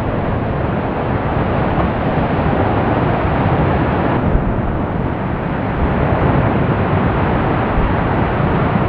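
Lava fountain of the Fagradalsfjall volcanic eruption: a loud, steady rushing rumble with a heavy low end and no breaks. Its higher part thins briefly about four seconds in.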